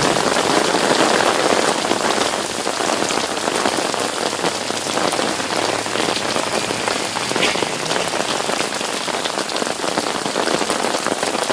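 Steady heavy rain falling and pattering on surfaces close to a phone's microphone, as a storm that is spawning a tornado comes through.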